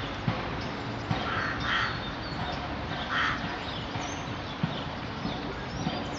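Crows cawing in the background: a few short, harsh caws, two close together about a second in and another about three seconds in, with faint small-bird chirps between them.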